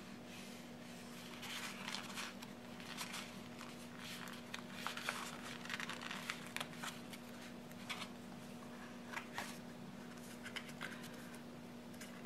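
Soft, irregular rustling and light scraping of paper as a sticker book sheet is handled and a sticker is pressed onto a planner page, over a faint steady hum.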